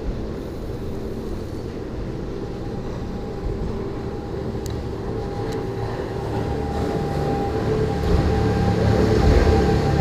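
A motor engine running with a steady hum, growing louder over the last few seconds as it draws closer.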